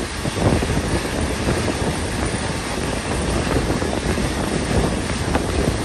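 Passenger train running along the track, heard from on board: a steady rumble of wheels on rails with a few faint clicks.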